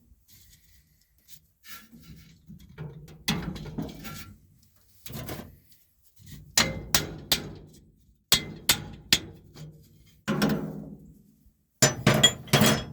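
Hammer blows on steel parts of a New Holland 315 square baler's feeder bar assembly, knocking a part loose. There are about a dozen sharp metallic clangs, often in quick runs of three, each ringing briefly after the strike.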